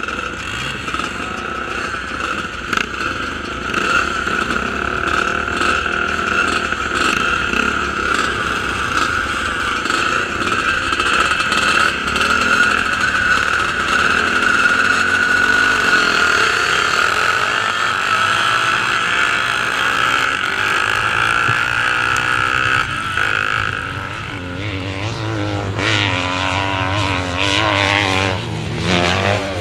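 Racing motorcycle engines running hard, several bikes at once, their pitch wavering up and down. Near the end one bike revs up sharply, its pitch climbing.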